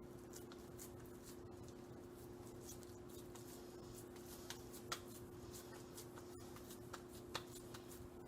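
Soft squishing and faint clicks of hands shaping raw ground beef into burger patties, with a few sharper taps about five and seven seconds in, over a steady low hum.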